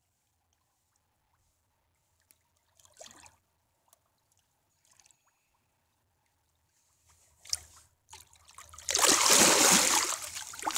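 Large wels catfish splashing as it swims off into shallow water: a loud splash of about two seconds near the end, after a long stretch of faint water sounds and a single sharp click.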